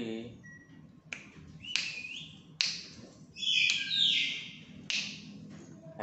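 Black-capped lory giving a string of short, harsh screeches, about six, each starting abruptly, with one longer, drawn-out screech around the middle.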